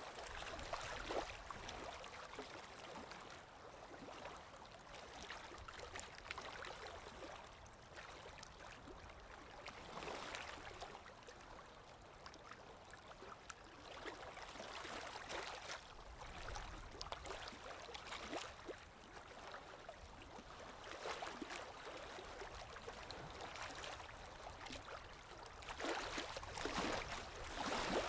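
Running water from a stream babbling and splashing over rocks: a steady rush full of small splashes. It swells louder briefly around ten seconds in and again near the end.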